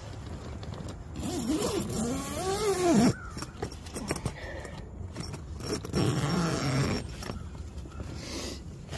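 A man's long, drawn-out groaning yawn as he stretches on waking, the pitch rising and then falling, followed by a shorter groan. Between and after them comes the rustle of sleeping-bag and hammock fabric as he shifts and reaches for the mesh bug net.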